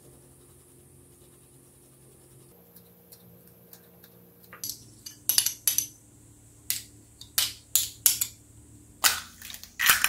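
Faint steady hum, then from about halfway a run of sharp clinks as a metal spoon knocks against a small ceramic dish and the rim of a glass mixing bowl. Near the end the knocks come quicker and heavier.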